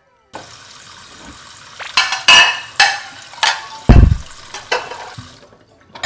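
Tap water running into a stainless-steel kitchen sink while dishes and cutlery clink and clatter as they are washed by hand. A dull, heavy thump about four seconds in is the loudest sound, and the running water stops near the end.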